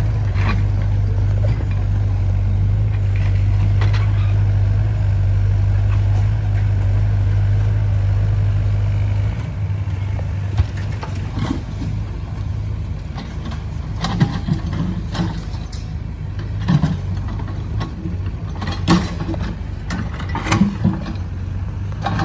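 Diesel engine of an XCMG XE60WA wheeled excavator running with a steady low drone that drops off about nine seconds in. Scattered sharp knocks follow, a second or more apart.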